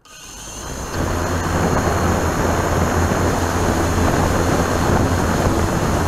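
Blade 350 QX3 quadcopter's electric motors and propellers spinning up over about a second, then running steadily with a low hum, rushing prop noise and a high whine while the drone is still on the ground.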